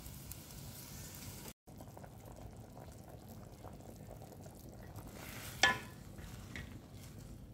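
Pot of chicken pasta soup at a rolling boil, a steady bubbling hiss, with a wooden spatula stirring it. A single sharp knock of the spatula against the pot comes about two-thirds of the way through.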